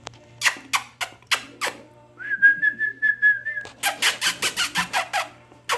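A person whistling one steady held note to call puppies, set among sharp mouth clicks, with a quick run of clicks right after the whistle.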